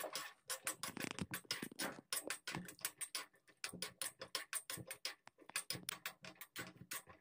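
Steel spoon scraping and tapping against a small iron kadai while stirring cashew nuts frying in ghee: a quick, uneven run of clicks and scrapes, several a second.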